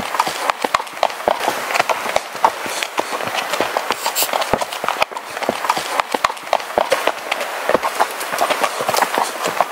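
Horses walking on a snow-dusted, stony trail: hooves clopping and knocking in an irregular run of short hits, over a steady rustle.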